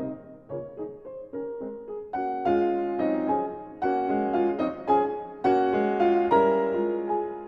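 Background piano music: notes and chords struck one after another, growing fuller and louder about two seconds in.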